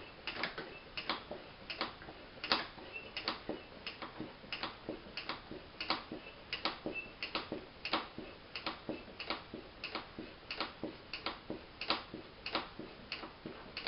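Tyre pump being worked in a steady rhythm of short hissing strokes, about two a second, inflating a motorcycle inner tube after a tyre change.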